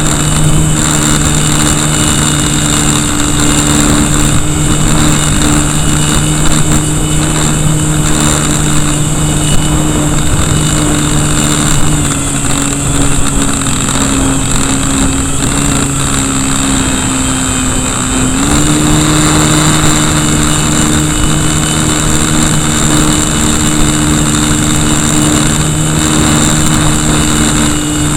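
Electric brushless motor (KV1100, 3S 11.1 V) and propeller of an RC Cessna running at steady throttle, heard from right beside the motor, with wind rush over the microphone. A little before halfway the pitch sinks slightly for several seconds, then steps back up sharply.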